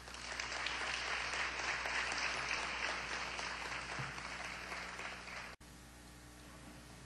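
Audience applauding, a dense even clatter of many hands that cuts off suddenly about five and a half seconds in.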